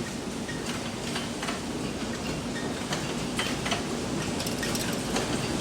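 A hall full of screw-making machines running at full production, a steady dense clatter with many irregular sharp clicks and knocks.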